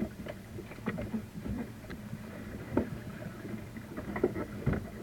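Water slapping against a boat's hull, with irregular knocks and thumps, the loudest about three seconds in and near the end.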